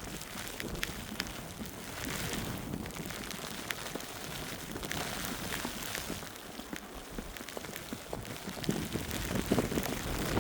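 Footsteps through fresh, wet snow during a snowfall: a steady hiss with scattered small ticks, getting louder near the end.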